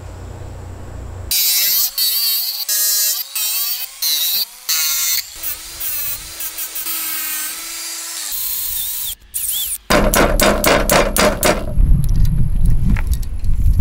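Cordless angle grinder cutting and shaping steel angle in a series of short bursts, its pitch wavering and sagging as the disc bites into the metal. Then a machine tap is run into a drilled hole in the steel, a dense, rapid rattling chatter.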